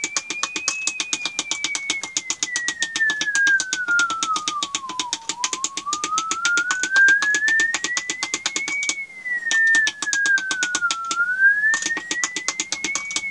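The CW Flea transmitter's carrier heard as a beat tone in a ham receiver on sideband, its pitch gliding down, up, down and up again as the transmitter is fine-tuned in small steps. Behind the tone runs a fast, even ticking of about five a second, which stops for a few seconds past the middle.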